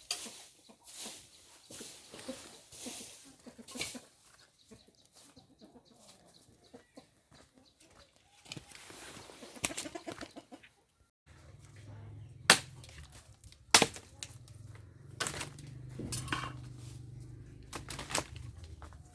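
Chickens clucking, with some wing-flapping. Partway through, the sound changes to a steady low hum with a few sharp knocks.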